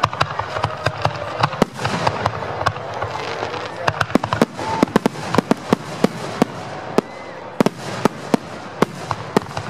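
Aerial fireworks shells bursting: many sharp bangs in quick, irregular succession, with a steady crackling hiss between them.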